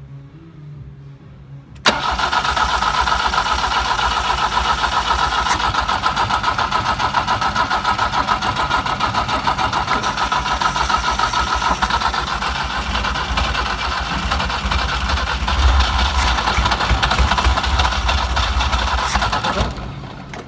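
Starter cranking the freshly rebuilt BMW M10 four-cylinder of a 1971 BMW 2002 on its first start attempt, beginning with a click about two seconds in and going on for about eighteen seconds without the engine catching.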